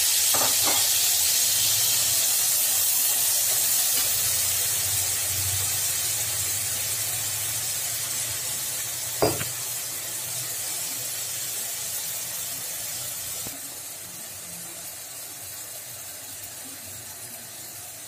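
Spice paste (onion, garlic-ginger paste and ground spices) frying in hot oil with fenugreek seeds in a kadhai: a steady sizzling hiss that slowly dies down. A steel spoon clinks once on the pan about nine seconds in.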